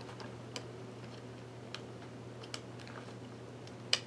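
A few sparse, light plastic clicks and taps from handling a laptop keyboard and seating its ribbon cable, the sharpest one near the end, over a steady low hum.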